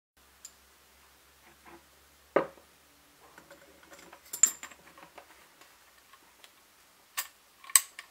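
Metal clicks and knocks of an ER collet nut and collet chuck being handled, the nut turned by hand to tighten it lightly. There is a sharp knock about two and a half seconds in, a cluster of small clicks near the middle, and two sharp clicks near the end.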